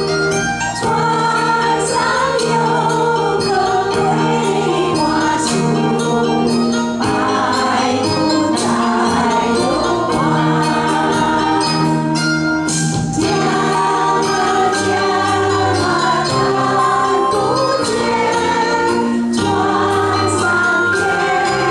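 An amateur group choir singing a Chinese song together over a musical accompaniment with light, jingling percussion.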